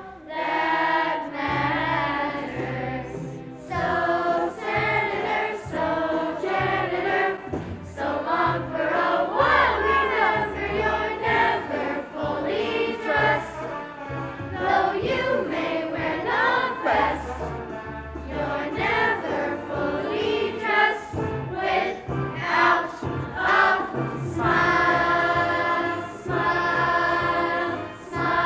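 A stage-musical cast of young performers singing a song together in chorus over a musical accompaniment with a steady bass beat.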